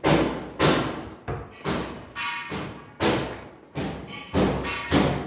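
A quick run of heavy thumps and knocks, about nine in all at roughly two a second and unevenly spaced. A few are followed by a brief ringing tone.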